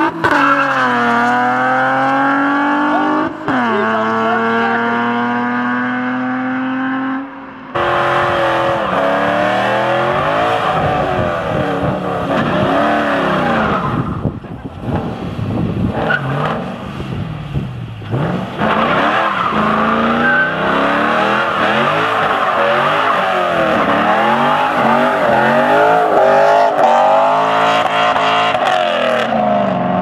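Two cars' engines at full throttle in a drag race, pitch climbing through the gears with a sharp drop at a shift about three and a half seconds in. After an abrupt change, a black fourth-generation Chevrolet Camaro's engine revs up and down over and over in a burnout, with the rear tyres squealing.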